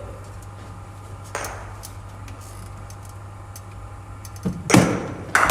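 Cricket bowling machine delivering a ball that is struck by the bat: two sharp knocks about half a second apart near the end, over a steady low hum.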